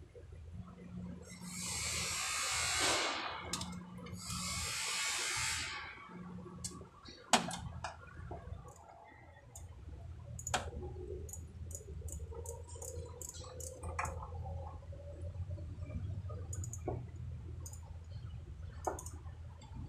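Two hissing blasts of about two seconds each, like compressed air or an aerosol spray, then scattered metallic clicks and taps from hand tools worked against the underside of the vehicle's drivetrain, over a low steady hum.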